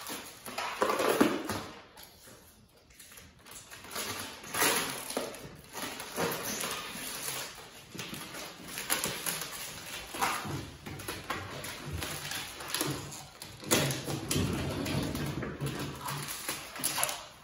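Protective plastic film being peeled off a stainless steel tool chest top, with irregular crackling, ripping pulls and a quieter pause about two seconds in.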